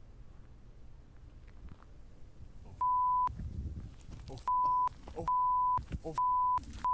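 Censor bleeps: five flat, steady beeps from about three seconds in, each cutting in and out sharply and blanking shouted swearing, with fragments of a person's shouting between them. Before the beeps, only a faint low rumble.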